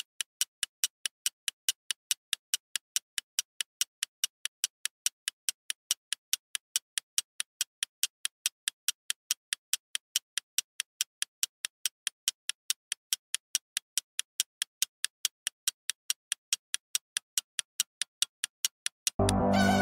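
A sharp, even ticking sound effect, about four ticks a second, like a fast clock. Music cuts in just before the end.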